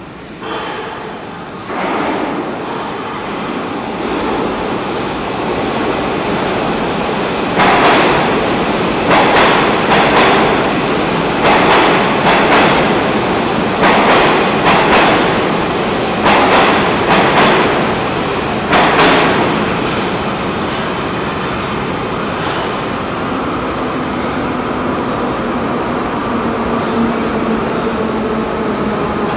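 An experimental KVSZ metro train (81-7036/81-7037) with asynchronous traction motors runs through the station. The rumble swells as it comes in, then comes a series of paired wheel knocks as the bogies pass over rail joints, about one pair every two seconds, and the train settles into a steady rumble with a faint low hum near the end.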